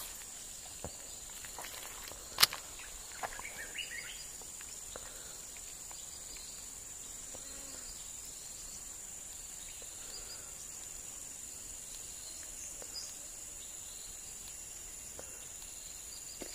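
Steady high-pitched drone of insects, with a few faint chirps and several sharp clicks, the loudest about two seconds in.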